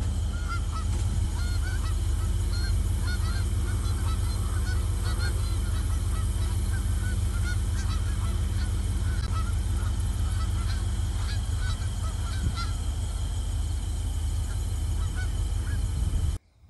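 A large flock of Canada geese honking continuously, many overlapping short calls, over a steady low rumble.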